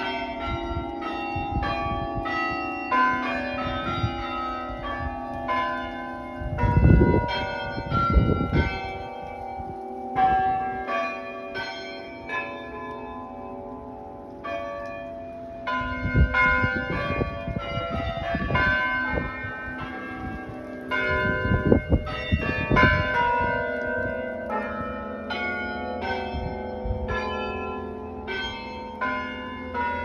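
A chime of tower bells playing a melody, one struck note after another with each note ringing on. Two short clusters of low thumps come through partway in.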